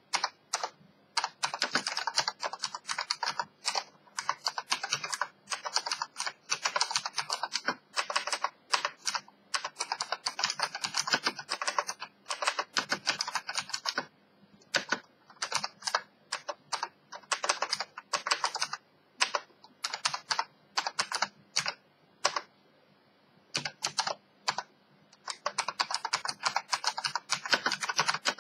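Keyboard with Omron key switches being typed on: runs of rapid clicking keystrokes, broken up by slower single key presses in the middle stretch.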